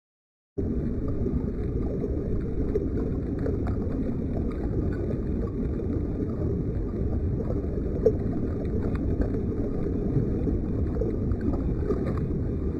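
Swift river current rushing and gurgling, a steady low rush that starts suddenly about half a second in.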